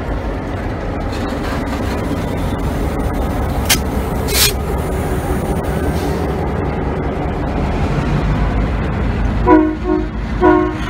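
New England Central diesel freight locomotive rumbling slowly past at close range, with freight cars rolling behind it. Two short blasts of a locomotive horn sound near the end.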